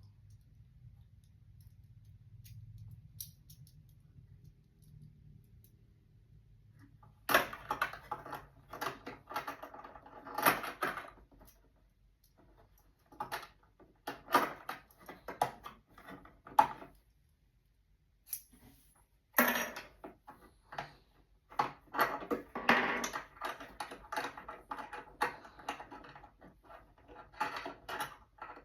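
A low steady hum for about seven seconds, then irregular clusters of small metallic clicks, clinks and rattles with short pauses between them, like small metal parts being handled.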